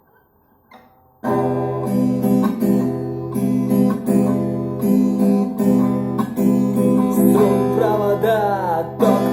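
Acoustic guitar strumming chords in a steady rhythm, starting suddenly about a second in: the instrumental intro of a song.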